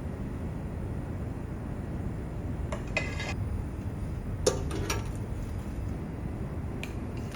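Dishes and cutlery clinking a few times, a short clatter about three seconds in, the loudest clink about four and a half seconds in, and a light tick near the end, over a steady low background rumble.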